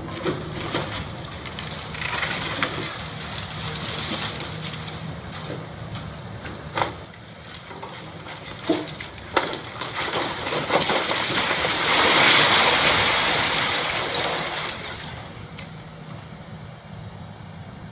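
A CAT tracked hydraulic excavator's diesel engine runs steadily while its bucket knocks apart an old brick barn, with sharp cracks and thumps of breaking brick, tile and timber. About ten seconds in, a long crashing rumble of masonry and roof collapsing builds, peaks and dies away over several seconds.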